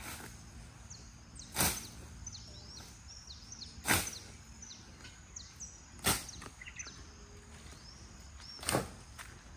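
A foice (long-handled brush sickle) swishing through tall grass and weeds, four strokes about two seconds apart. Birds chirp in between.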